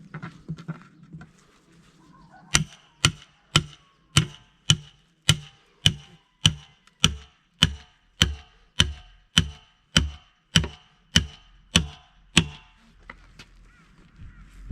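Steady hammer blows on a steel split wheel rim, about two a second, each a sharp strike with a short metallic ring. They start about two and a half seconds in and stop near the end.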